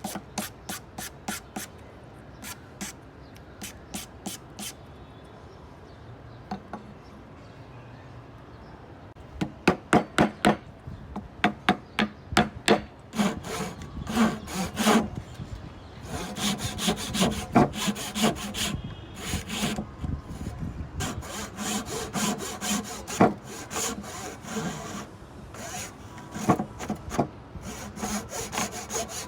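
Hand saw cutting wood in quick back-and-forth strokes. Light strokes at first, then a pause, then louder strokes that settle into a long, steady run of sawing.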